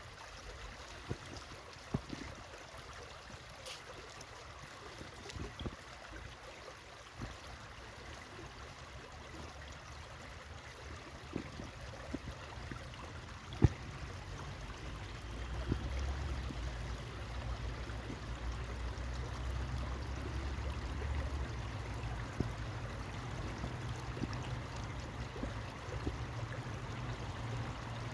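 Shallow stream water flowing and trickling steadily, with scattered small clicks and one sharp knock near the middle. A low rumble comes in about halfway and stays.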